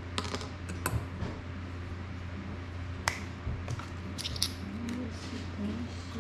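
Scattered sharp clicks and taps of tweezers and small drone parts being handled on a workbench cutting mat, a few in quick succession in the first second and again between three and four and a half seconds in, over a steady low hum.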